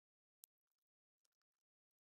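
Near silence, broken by a few faint, sharp clicks; the clearest comes about half a second in, followed by scattered fainter ticks.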